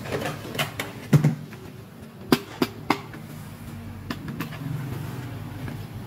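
Plastic toy phone being picked up and handled: a run of sharp plastic clicks and knocks, the loudest a little over a second in, then three quick clicks at even spacing and a couple of fainter taps.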